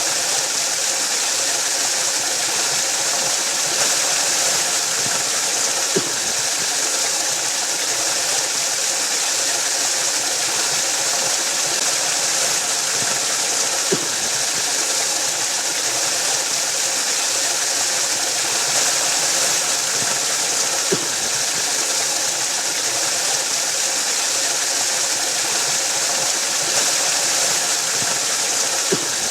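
Steady, hissing rush of a waterfall, with a brief faint click about every seven to eight seconds.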